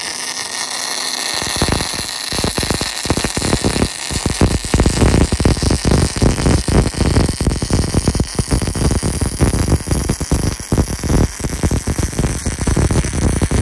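Wire-feed (MIG) welding arc on steel, a steady crackling hiss full of rapid pops as the bead is laid. The lower, heavier crackle fills in about two seconds in and holds steady after that.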